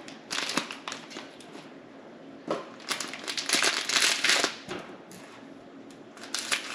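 Foil blind bag crinkling and crackling as it is handled and squeezed, most densely in the middle. Near the end scissors begin cutting into the foil.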